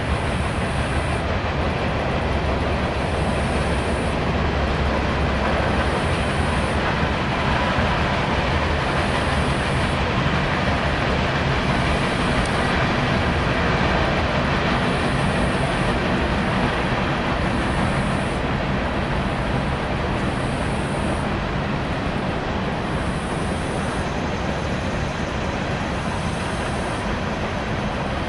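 A freight train rolling past, a steady noise of cars running over the rails.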